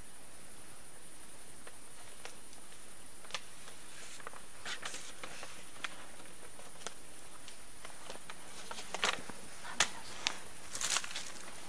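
A steady, high chirring of night insects, over scattered light clicks, rustles and shuffling footsteps from people standing close by. A few louder rustles and knocks come in the last three seconds.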